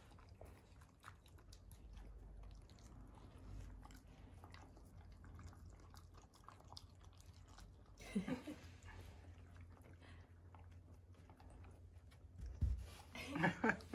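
Akita dogs chewing and licking up pieces of roasted sweet potato: a run of small wet clicks and crunches. Short voiced sounds break in about eight seconds in and again near the end.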